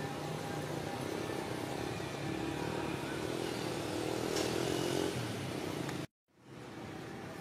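A motor vehicle engine running steadily, a little louder four to five seconds in. It cuts off suddenly about six seconds in and comes back slightly fainter.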